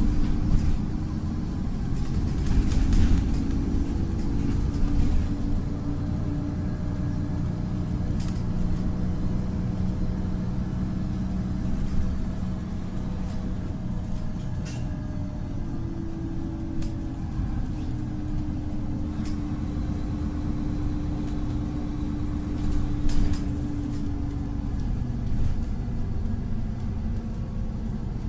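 Warsaw tram riding along, heard from inside: a continuous low rumble of the wheels on the rails with a steady hum over it, and a few sharp clicks and knocks.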